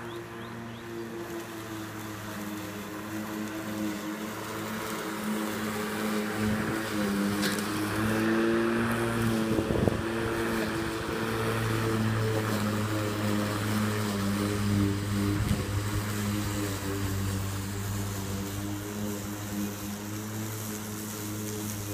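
Electric rotary lawnmower running steadily as it is pushed over grass: a steady motor hum whose pitch wavers slightly under load. It gets louder and adds a hiss of cutting as the mower passes close in the middle, with a brief knock about ten seconds in.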